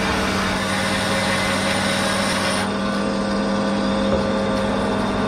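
Large cast-iron band saw running with a steady hum while a heavy curved boat-frame timber is fed through the blade; the cutting noise drops off about two and a half seconds in, as the cut comes through, leaving the saw running on.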